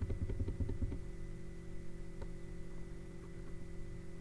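Computer keyboard keys tapped in quick succession for about the first second, then only a click or two over a steady low electrical hum.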